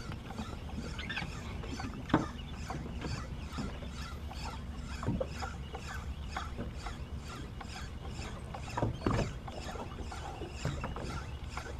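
Small boat on the sea: a steady low rumble with a few sharp knocks, the loudest about two seconds in and a cluster around nine seconds in.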